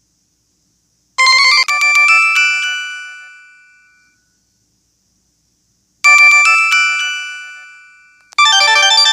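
Ringtone melody from an LG 630 (PD6335) mobile phone: a short phrase of quick notes that rings out and fades, played twice with a pause between. A busier, faster run of notes starts near the end.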